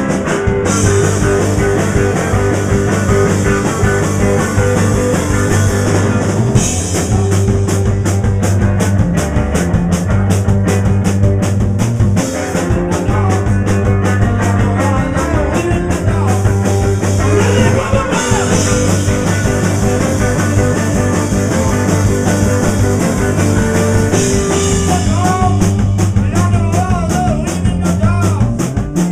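Live rock band playing loud: electric guitar over a steady drum-kit beat and heavy low notes.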